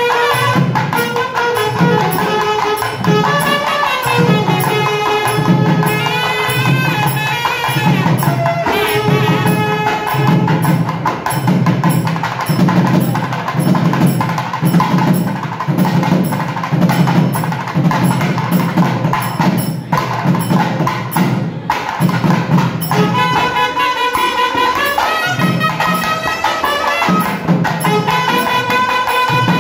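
South Indian band music: clarinets and a saxophone play a gliding melody over two thavil barrel drums beating a steady rhythm. For a few seconds past the middle the wind melody drops back while the drums carry on, then it returns.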